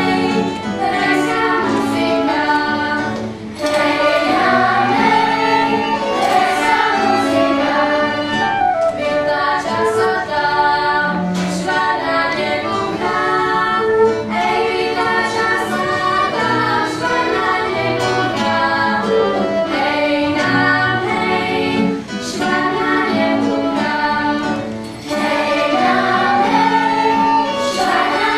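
Children's choir singing with a small ensemble of violin, flute, cello and guitar, in brief phrases with short breaks between them.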